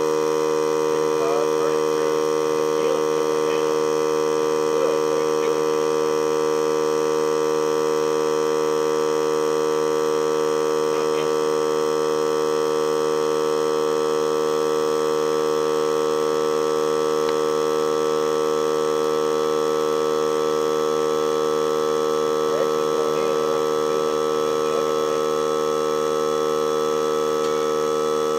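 Air compressor running steadily, a constant hum made of several even tones, feeding air to a wheel-rim forge that is heating a knife blank. A higher tone comes in about two-thirds of the way through.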